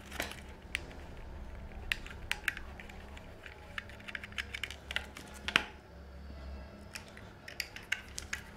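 Irregular small clicks and taps of hands working on electrical wiring at a switch's terminals, some sharper than others, over a low steady hum.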